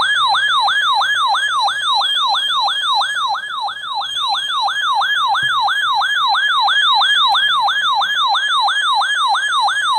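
RadioShack 12-991 weather alert radio's built-in siren sounding in continuous test mode: a loud, fast warble of about three sharp pitch sweeps a second, cutting off suddenly at the end.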